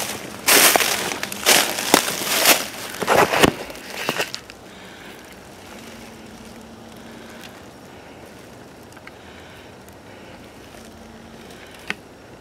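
Footsteps crunching through dry leaf litter, about one step a second, stopping about four seconds in. After that only quiet woodland air, with one sharp click near the end.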